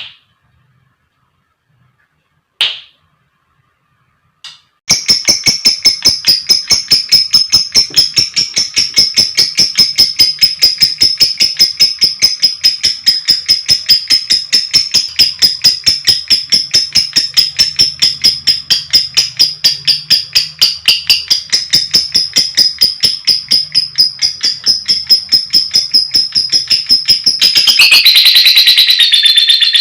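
A lovebird calling: three single sharp chirps, then about five seconds in a long unbroken 'ngekek' chatter, a fast, even run of shrill notes at several a second, turning harsher and denser near the end.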